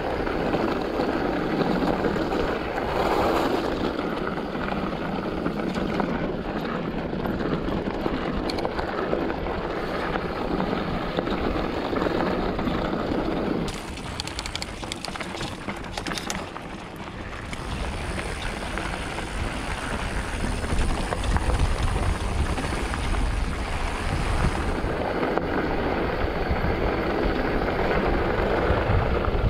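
A Polygon Siskiu N7 mountain bike ridden along a dirt trail: a steady rumble and rattle of tyres and frame over the ground. About halfway there is a quieter stretch with a run of quick ticks before the rumble builds again.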